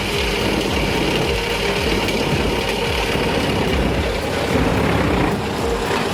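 Heavy wood-processing machine running steadily, its engine giving a constant mechanical drone.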